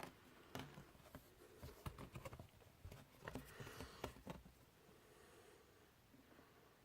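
Faint handling noises from a vinyl LP and its paper and cardboard sleeves: scattered light taps and short rustles for the first four seconds or so, then only faint room hiss.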